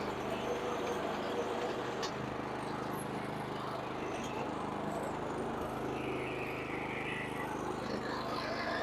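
Gasoline lawn mower engine running steadily at constant speed while cutting grass.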